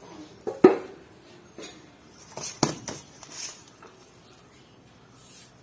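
Steel ladle clinking and scraping against a stainless steel bowl as cooked jackfruit curry is stirred. There are two sharp clinks about two seconds apart, the first the loudest, with softer clatter around the second.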